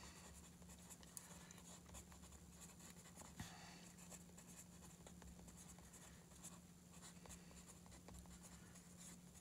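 Faint scratching of a pen writing by hand on sketchbook paper, with a steady low hum underneath.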